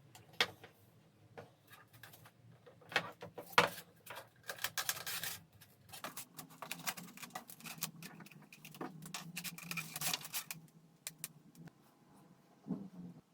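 Irregular clicks, knocks and rustling scrapes of hand work with small hard materials, busiest through the middle and thinning out near the end, with one loud sharp knock a few seconds in.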